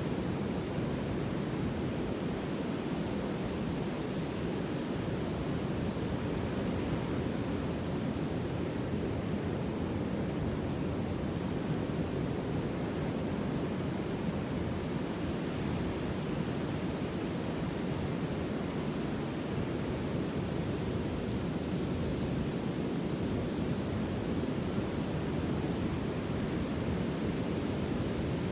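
Sea surf as a steady, even rush of noise, with no single wave breaking out of it.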